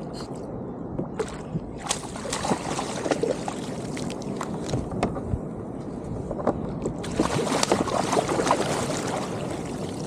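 Water splashing and sloshing around a fishing kayak as a hooked fish fights at the surface, in uneven bursts with sharp little splashes, busiest about two seconds in and again from about seven seconds.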